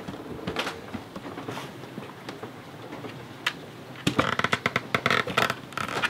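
Dog's claws clicking on the floor, then a quick flurry of scratching and scrabbling about four seconds in as it climbs onto a cushion.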